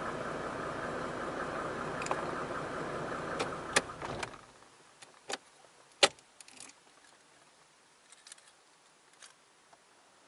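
Mercedes-Benz 300SDL's OM603 six-cylinder turbodiesel idling steadily, heard from inside the cabin, then shut off a little over four seconds in and going quiet at once. A few sharp clicks follow, the loudest about six seconds in.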